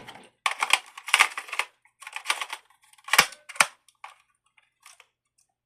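Plastic clicking and rattling as a System Sensor i3 smoke detector head is handled and twisted onto its wired mounting base, with two sharper clicks about three seconds in and a few light ticks after.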